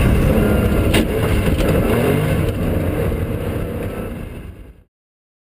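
Porsche 911 rally car's flat-six engine revving hard as the car drives past at speed on a loose gravel track, with a sharp crack about a second in. The engine fades as the car moves away and the sound cuts off abruptly near the end.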